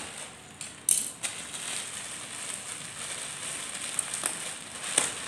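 Plastic courier mailer bag being handled and torn open, crinkling, with a loud crackle about a second in.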